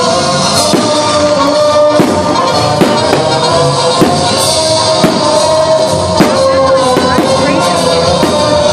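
Loud music with singing and a beat.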